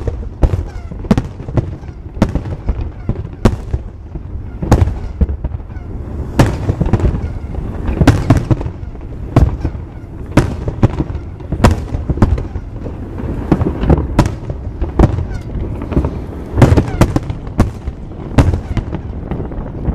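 Aerial fireworks shells bursting in quick, irregular succession, about two or three sharp bangs a second over a continuous low rumble.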